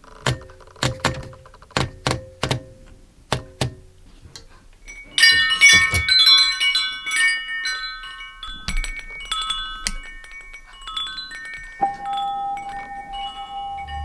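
About nine sharp typewriter key strikes, then a wind chime tinkling in a dense cluster of ringing notes that slowly thins out. A steady ringing tone comes in near the end.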